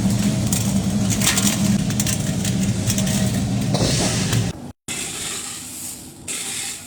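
Factory machinery running with a steady low hum and a busy rattling, clinking clatter. It cuts off abruptly about two-thirds of the way in, then gives way to a quieter hiss.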